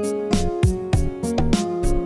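Background music with a steady beat: drum hits about three a second under sustained pitched chords.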